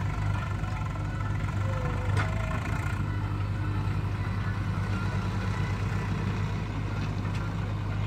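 JCB 3DX backhoe loader's diesel engine running steadily under hydraulic load as the backhoe arm swings and digs, with a short sharp knock about two seconds in.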